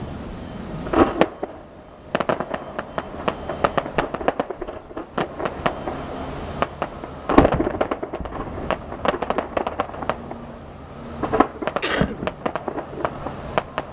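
Fireworks going off: booming shell bursts with dense crackling and popping between them. The biggest bursts come about a second in and about seven seconds in.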